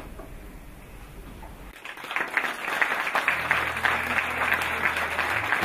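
Audience applauding: a short hush, then clapping breaks out about two seconds in and carries on densely.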